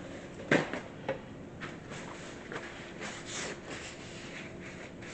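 A single sharp knock about half a second in, a lighter click soon after, then faint rubbing and handling noises.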